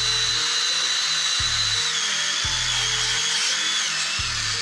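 Cordless DeWalt drill spinning a 3M Roloc bristle disc against the edge of an aluminium engine part, scrubbing off old gasket residue. A steady high whine that steps down slightly in pitch about two seconds in.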